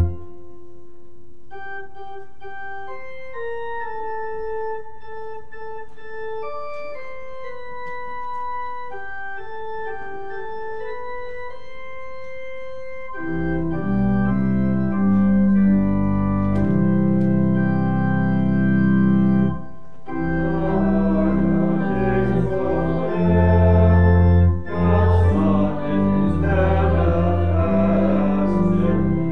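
Church organ playing. A loud held chord with deep bass stops right at the start, then a quiet single line of melody plays. About thirteen seconds in, full chords with deep pedal bass come in, louder.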